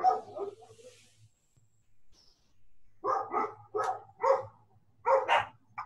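Dog barking: after a quiet stretch, a run of about five short barks spaced roughly half a second apart, starting about three seconds in.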